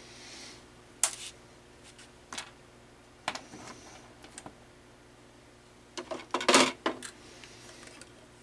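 Scattered sharp clicks and taps of small plastic and metal parts being handled with a cordless screwdriver on a CD changer's carousel, with a quick run of clattering clicks about six seconds in.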